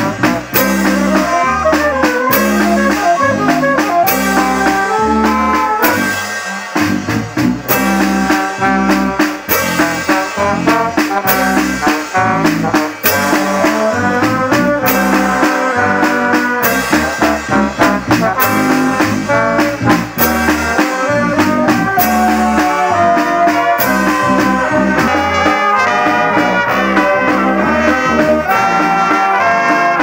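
Wind band playing a tune: saxophones, trumpets and trombone carry the melody over low bass notes, with snare drum and hand cymbals striking a steady beat.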